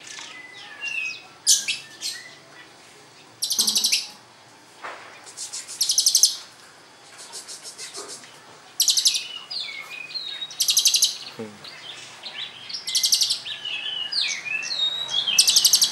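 Young lovebird singing in the 'celilin' style: repeated bursts of very fast, high trilled chirping about half a second long, with short sharp chirps and whistled notes in between.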